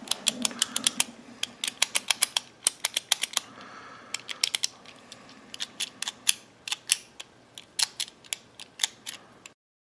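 A Master Lock speed dial padlock's directional dial being pushed quickly in sequence: a fast, irregular run of sharp plastic clicks, several a second, with the shackle tugged between entries while a factory-code brute-force sequence is keyed in. The clicking cuts off abruptly near the end.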